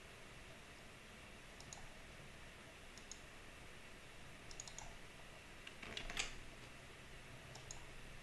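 Faint, scattered clicks of a computer mouse, with a brief louder rustle about six seconds in.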